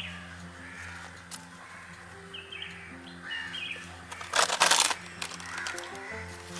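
Background music of soft held notes with birds chirping. About four seconds in, a short loud rustle of the green sweet corn husks and dry leaves as the cobs are set down.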